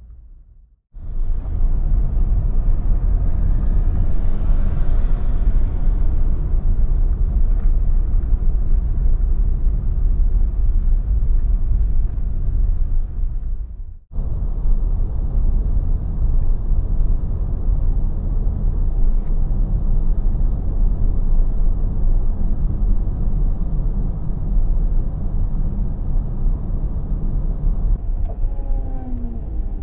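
Steady low rumble of a car driving, road noise heavy in the bass. It drops out for an instant about halfway through. A few short falling squeaks come near the end.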